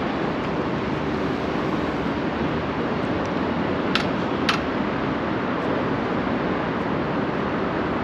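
Steady outdoor street noise with a car driving past on the road, and two short clicks about halfway through.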